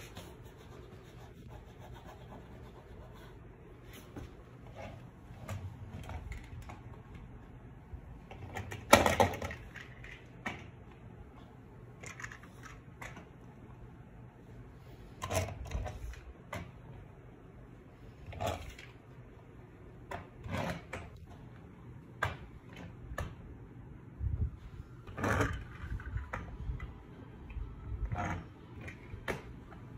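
Scattered light knocks and clicks of handling at irregular intervals, the loudest about nine seconds in, over a faint steady hum.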